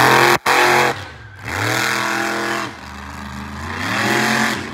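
Monster truck engine revving hard in repeated surges, its pitch climbing and falling three times as the throttle is worked. The sound drops out for an instant near the start.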